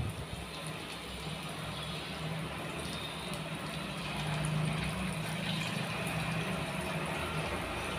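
Hot oil sizzling steadily as sabudana vadas deep-fry in a steel pot, with a low steady hum underneath. The sound grows a little louder about four seconds in, as more batter is dropped into the oil.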